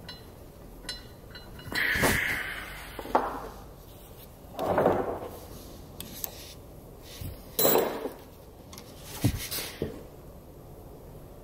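A wrench and an aluminium AN fitting being worked onto the end of a braided PTFE fuel hose held in a bench vise: about five short metallic scrapes and clinks, a second or two apart.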